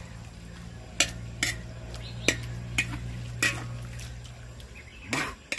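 Metal spoon stirring a wet chicken-and-herb salad in a metal wok, with a series of sharp clinks and scrapes as it strikes the pan, roughly every half second. A low steady hum runs under it and fades near the end.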